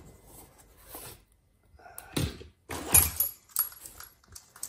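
Handling noises from a small hand tool being picked up and worked: a knock about two seconds in, then a few short rattling, scraping clatters.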